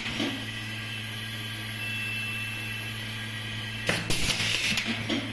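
Steady low hum, then about four seconds in a short burst of air hiss and sharp clicks as the pneumatic automatic-feed pop rivet gun cycles.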